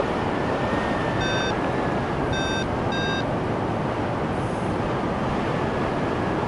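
Steady rush of wind over the microphone in flight, with three short electronic beeps between about one and three seconds in, of the kind a paraglider's variometer gives when it senses lift.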